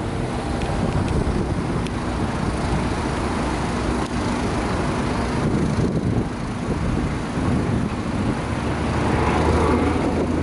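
A steady low rumble like a running engine, mixed with rushing wind noise.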